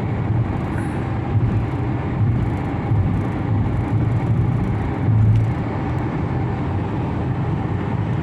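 Steady road noise of a moving car: a low hum under an even rush of noise.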